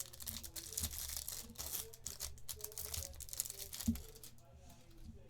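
A trading card pack's foil wrapper being torn open and crinkled, with a couple of soft knocks from handling. The sound is a dense rustle for about four seconds, then it dies down.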